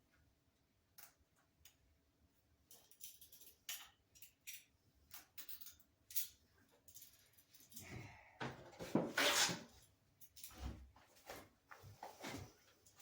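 Handling noises: scattered small clicks and taps, then a louder rustling scrape lasting about two seconds from around eight seconds in, followed by a few more knocks.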